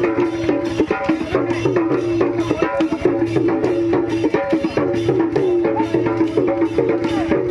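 Folk music with drums and percussion keeping a fast, steady beat under a wavering melody line.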